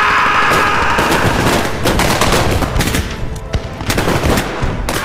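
Film battle soundtrack: a man yells at first, then rapid machine-gun and rifle fire crackles in irregular bursts, with music underneath.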